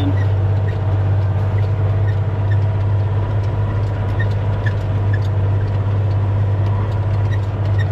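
10-wheeler truck's diesel engine running under way in a steady low drone, with faint scattered clicks over it.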